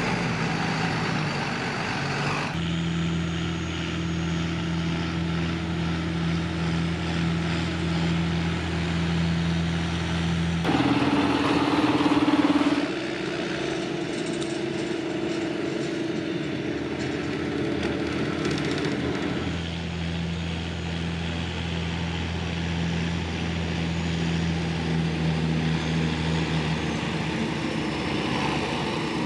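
John Deere tractor diesel engine running steadily under field work, with a louder, higher-pitched stretch about eleven seconds in.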